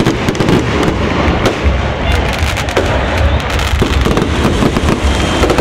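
Fireworks going off overhead: a dense, rapid string of sharp cracks and pops over a steady low rumble.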